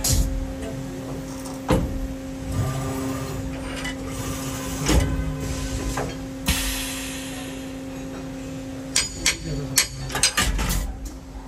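CNC machining centre running inside its enclosure: a steady machine hum, with scattered sharp clicks and knocks that bunch up near the end, and a stretch of hiss about six and a half seconds in.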